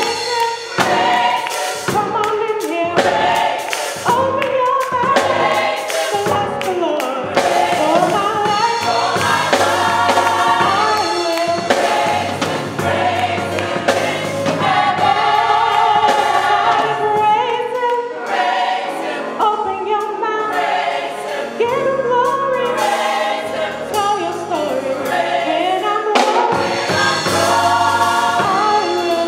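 Gospel choir singing.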